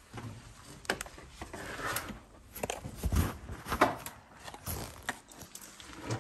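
Irregular footsteps, scuffs and knocks of a person moving through a narrow brick-walled passage, with a few louder knocks around the middle.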